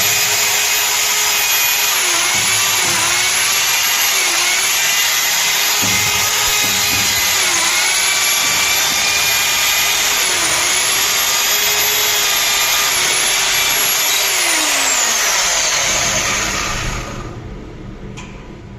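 Electric drill running at speed, its pitch dipping briefly several times as it bites under load, then winding down and stopping near the end.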